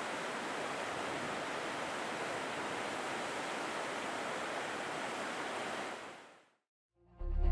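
Glacial meltwater river rushing: a steady, even rush of water that fades out about six seconds in.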